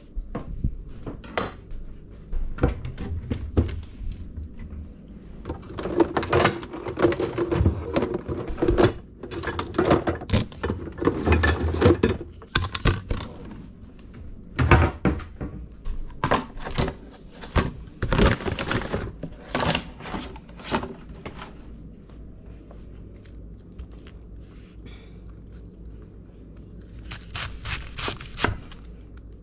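Kitchen handling sounds: dishes, utensils and cupboard doors clinking and knocking in irregular bursts, with a quieter stretch about three quarters of the way through. Near the end a knife starts chopping quickly on a cutting board.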